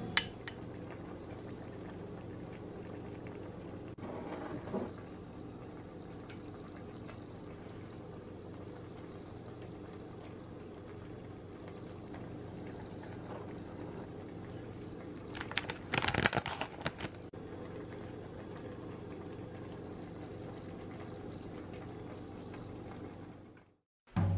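Steady low hum of kitchen room noise. A short cluster of clicks and knocks comes about sixteen seconds in. The sound drops out just before the end.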